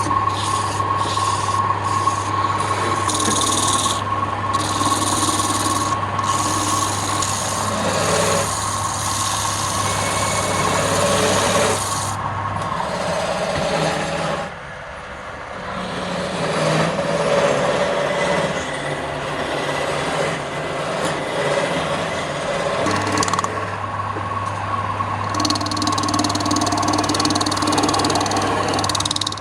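Wood lathe running, with a tool or abrasive scraping and rubbing against the spinning wood. The motor's low hum drops out for a stretch in the middle, and the rubbing briefly eases about halfway through.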